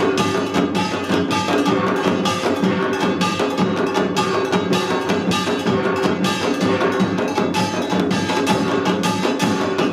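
Korean samul nori ensemble playing an Utdari rhythm: kkwaenggwari small gongs clanging over janggu hourglass drums and buk barrel drums in fast, dense, steady strokes.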